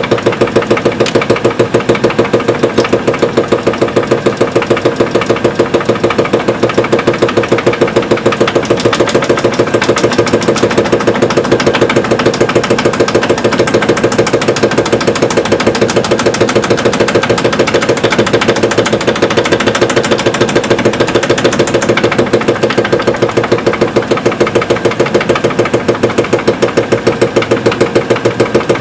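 Eureka-3M semi-automatic washing machine on spin, its belt-driven stainless steel drum turning with a quick, even knocking: the sign of a worn drum bearing.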